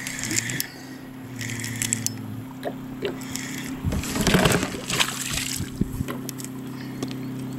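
Choppy lake water sloshing and splashing against a plastic kayak hull, with a larger splash in the middle and a few knocks from gear being handled.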